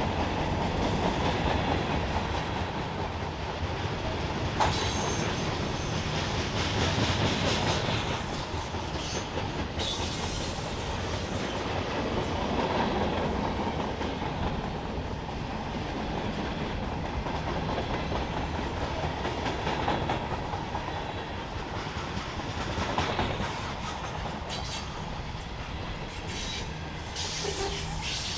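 Norfolk Southern freight train's cars rolling past, a steady rumble with wheels clicking over the rail joints, and a faint high wheel squeal near the end.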